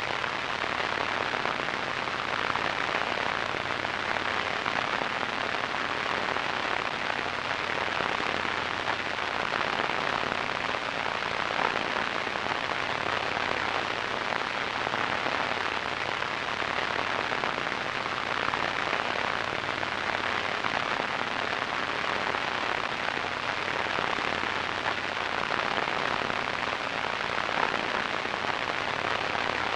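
Radio static: a steady, even hiss with fine crackle, strongest in the mid range and rolled off in the highs.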